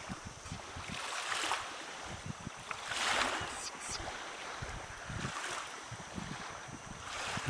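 Wind buffeting the microphone along with the wash of small waves on a lakeshore, the noise swelling and easing every two seconds or so.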